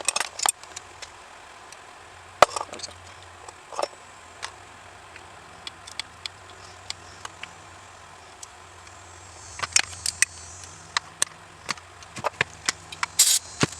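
Small metal carburetor parts clicking and knocking as they are handled on a workbench, taken apart and compared, with a short hiss about ten seconds in and another brief hiss near the end.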